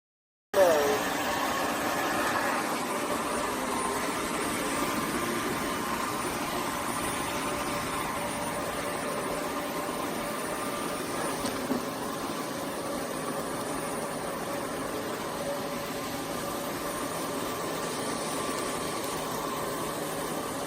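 Roborock F25 GT wet-dry vacuum mop running steadily: a motor-and-airflow drone that starts suddenly about half a second in and holds an even level.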